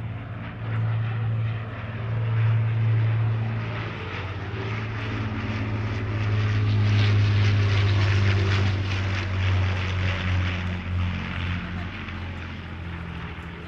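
Avro Lancaster bomber's four Rolls-Royce Merlin V12 engines and propellers passing in a low flyby: a deep, steady drone that builds to its loudest about halfway through, then eases off.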